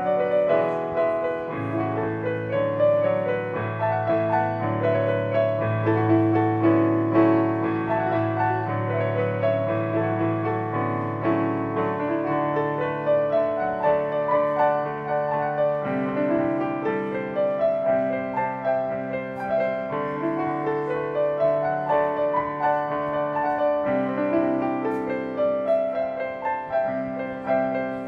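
Live piano piece on a Yamaha stage piano: sustained chords in the low and middle register with a melody moving over them, with no drums.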